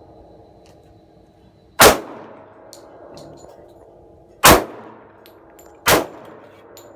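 Three shots from a Taurus PT111 G2 9mm pistol, about 2.7 and then 1.4 seconds apart, each followed by a ringing tail.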